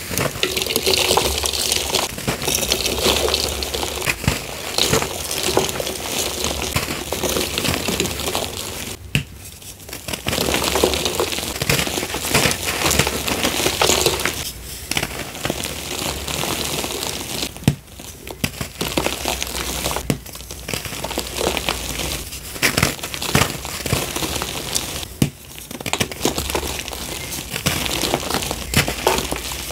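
Blocks of gym chalk being crushed and snapped by hand: dry crunching and crumbling with sharp snaps, broken by a few brief lulls.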